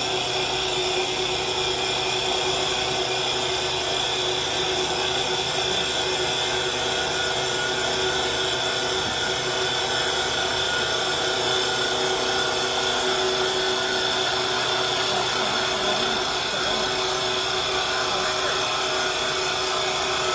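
STYLECNC STL1530 CNC wood turning lathe running, its cutter shaping a spinning wooden spindle as the carriage feeds along it. It makes a steady machine hum and whine over the hiss of the cut.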